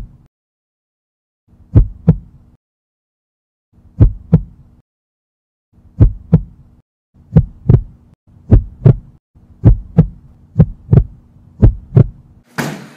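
Heartbeat sound effect: paired thumps, slow at first and then quickening to about one beat a second, over a faint steady hum. A sudden loud noise cuts in near the end.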